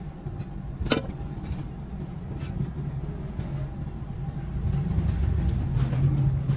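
A steady low engine or motor drone that swells louder in the second half, with one sharp knock about a second in.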